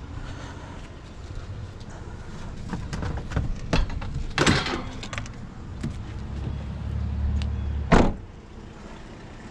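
Clunks of a scrap item being handled and loaded into a vehicle, with two loud bangs about four and a half and eight seconds in, the second a door being shut. A low engine rumble runs underneath and grows louder near the end.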